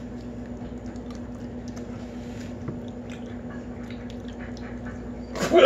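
Faint chewing of a jelly bean, with small wet mouth clicks over a steady low hum; a voice breaks in near the end.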